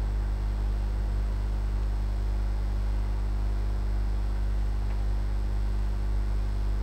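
Steady electrical mains hum, with its low buzz and overtones and a faint hiss behind it.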